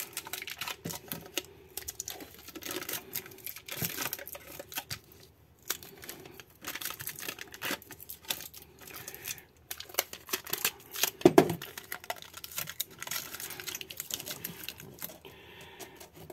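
Aluminium foil tape crinkling and tearing as it is pressed and wrapped over the open ends of a stainless steel exhaust pipe, sealing them for gas purging before welding. A single louder knock about eleven seconds in.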